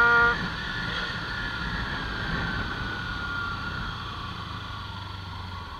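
Kawasaki Ninja 300 parallel-twin engine running under riding wind noise, its pitch falling slowly and its level dropping as the bike slows. The low rumble fades away near the end.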